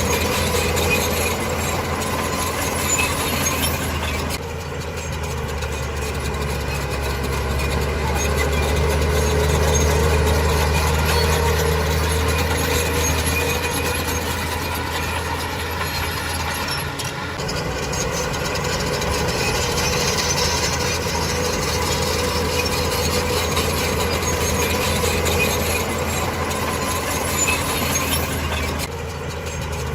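Heavy diesel earthmoving machinery running steadily with a low engine drone and mechanical clatter. The sound shifts abruptly three times, about 4.5, 17.5 and 29 seconds in.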